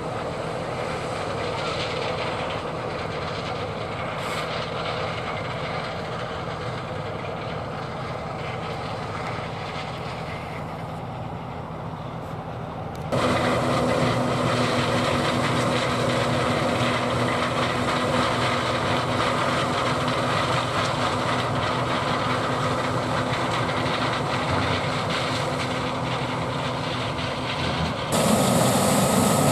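John Deere 9570 STS combine running under load while harvesting corn: a steady drone of engine and threshing machinery. It jumps abruptly louder about halfway through and again near the end.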